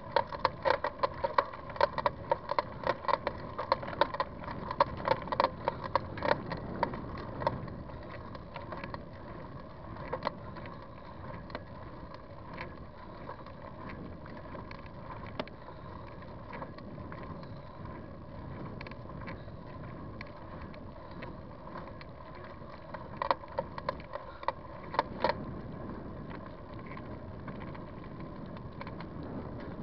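Bicycle riding along a trail: steady wind and tyre noise, with a rapid rattling of sharp clicks from the bike as it goes over bumps. The rattling is thick for the first several seconds, fades out, then returns briefly about three quarters of the way through.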